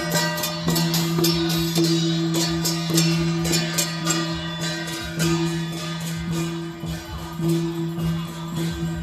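Procession music: quick metallic percussion strikes over a steady held drone.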